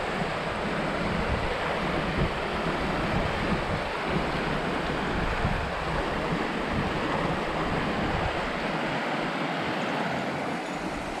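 River rapids rushing steadily, with wind gusting on the microphone.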